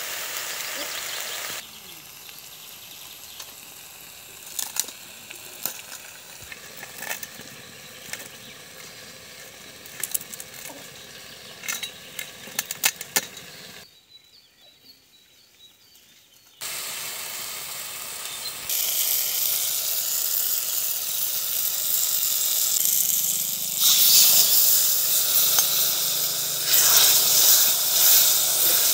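Kachur shak greens frying in a metal wok over a wood fire, with the clicks and scrapes of a metal spatula stirring them. The sound breaks off briefly just past the middle. It then comes back as a loud, steady sizzle as the wetter fish-head curry cooks and is stirred, loudest near the end.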